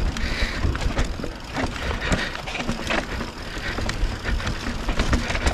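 Mountain bike rolling down a rough dirt trail: steady tyre and riding noise with frequent clatter and knocks as the bike goes over bumps.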